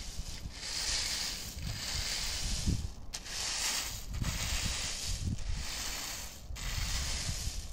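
In-shell hazelnuts rattling and hissing as a wooden rake is dragged through a thick layer of them on a tarpaulin, turning them over to dry. About five long strokes, each with a short pause between.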